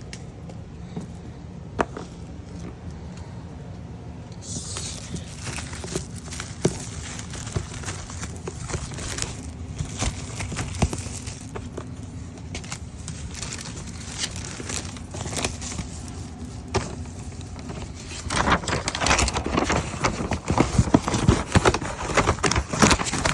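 A furnace filter being handled and swapped, with irregular clicks, knocks and rustling from the filter's frame and the filter slot, growing busier and louder over the last few seconds. A steady low hum runs underneath.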